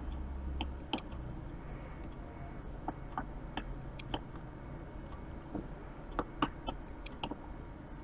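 About a dozen scattered clicks of a computer mouse and keyboard at irregular spacing, over faint steady room noise.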